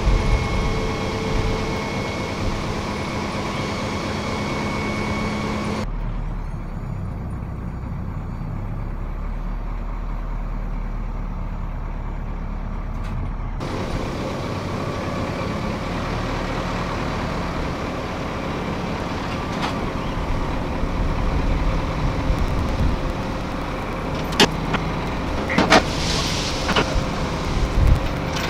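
A GMC C7000 dump truck's 8.2-litre Detroit Diesel runs steadily while the dump bed is lowered, with a steady whine for the first few seconds. Several sharp knocks and clatters come near the end.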